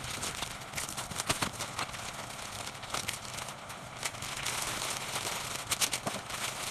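Flower wrapping paper crinkling and crackling as it is handled and folded around a bouquet, with many irregular sharp crackles.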